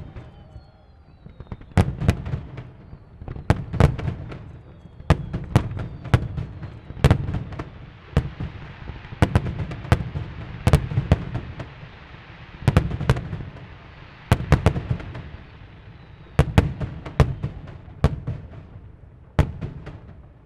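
Aerial fireworks shells bursting one after another, about one deep bang a second with rumbling tails, a few whistling shells in the first seconds, and crackling stars hissing between the bangs in the middle stretch. The last burst comes about a second before the end.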